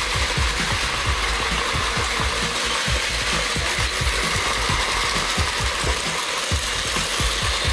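Battery-powered Plarail Advance toy trains running on plastic track: a steady gear-motor whir with a quick rattling clatter of wheels over the track, several knocks a second.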